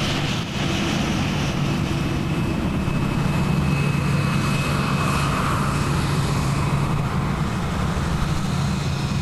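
Jet airliner's engines running as the aircraft moves past close by: a steady low rumble with a high whine that fades about halfway.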